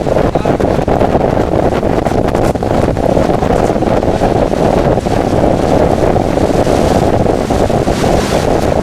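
Hurricane winds buffeting the microphone: a loud, steady rushing that barely lets up.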